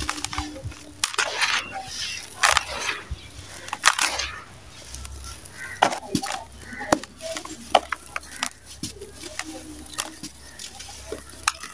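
Dry sand-cement chunks crushed and crumbled between bare hands: gritty crunching and many sharp crackles, with the hiss of loose sand and dust pouring back into a plastic basin.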